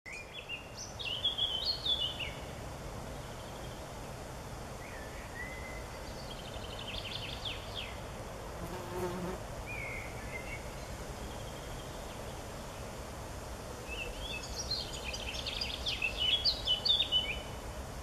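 Woodland songbirds singing short phrases of quick rising and falling notes: loudest about a second in and again near the end, with a softer phrase in the middle. Under them runs a faint, steady buzzing of flying insects.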